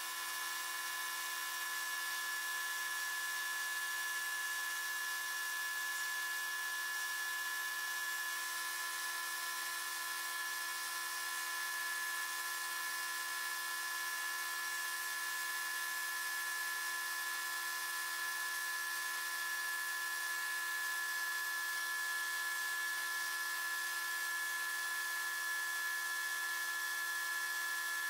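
Sandblasting cabinet's blast gun running: a steady hiss of compressed air and abrasive with a high, steady whine, stripping rust from an old hewing axe head.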